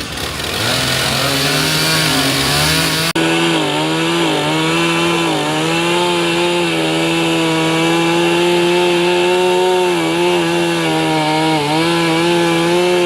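Steam-engine-driven circular saw bench running through timber: a steady whine whose pitch dips briefly several times as the blade takes the load of the cut. The sound swells in at the start and breaks off for an instant about three seconds in.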